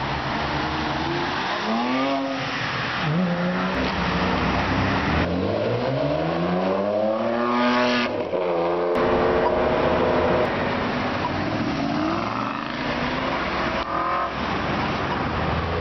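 Supercar engines accelerating hard away along a street, one clip after another: the exhaust note climbs steeply in pitch and drops back at each gear change, the longest and loudest climb about five to eight seconds in.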